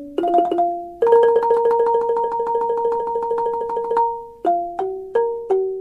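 Instrumental intro music of clear single notes that ring and fade. About a second in, one note is repeated rapidly for about three seconds, followed by a few separate notes.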